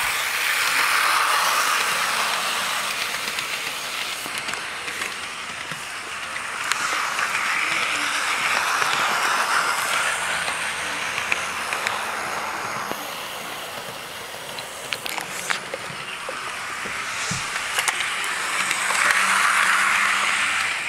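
HO scale model train running on its track, its motor and wheels whirring. The whir swells and fades three times as the train passes close by and moves away again, with a few sharp clicks in the second half.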